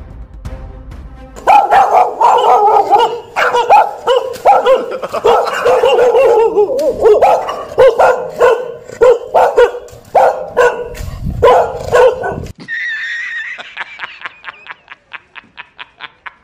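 Dog barking loudly and rapidly, one bark after another for about eleven seconds. It then gives way to a brief high tone with a quick run of ticks that fade out.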